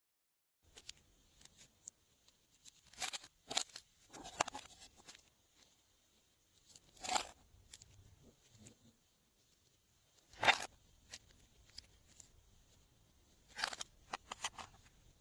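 Glossy slime being handled: irregular sticky clicks and crackles, a few seconds apart, the loudest about ten seconds in.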